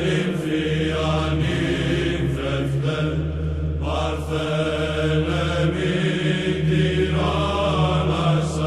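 Greek Orthodox Byzantine chant: a slow, drawn-out melodic vocal line sung over a steady low held drone (the ison).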